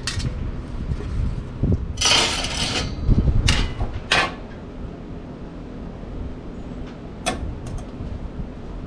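Metal pizza-oven parts and their screws being handled: a scraping rustle about two seconds in, then a few sharp clicks and clinks.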